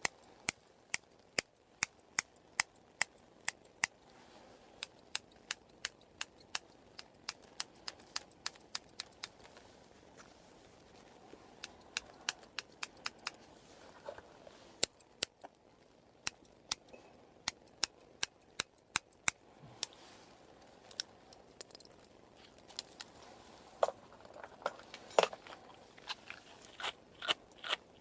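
Scissors snipping close to the microphone: runs of sharp metallic clicks, about two to three a second, broken by a few short pauses.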